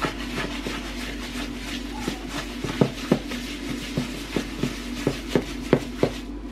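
Wire whisk clicking and scraping against a plastic mixing bowl while beating sugar and melted butter into a gritty mixture, in irregular strokes a few times a second. A steady low hum runs underneath.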